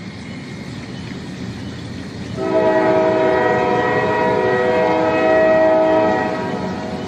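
Train rumbling as it draws nearer, growing louder; about two and a half seconds in, its horn sounds a steady chord of several notes and holds it, easing off slightly near the end.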